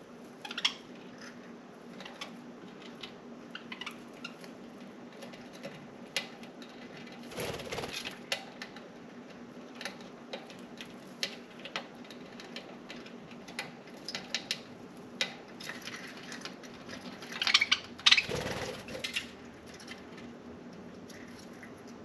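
Budgerigars' claws and beaks clicking and tapping on window blinds: scattered light clicks, with two louder rattling bursts about seven and eighteen seconds in, over a steady low hum.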